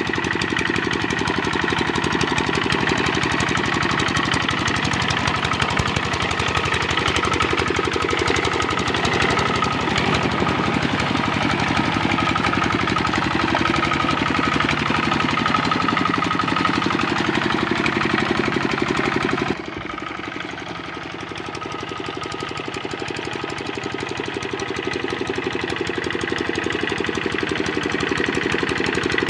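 Kubota RD65 single-cylinder diesel engine of a hand tractor running steadily with a rapid knocking beat. About twenty seconds in it suddenly turns quieter, then gradually builds back up.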